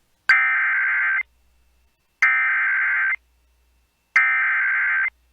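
NOAA Weather Radio SAME digital header: three identical bursts of warbling data tones, each about a second long with a click at the start and about a second of silence between them. The header marks the start of a new alert broadcast.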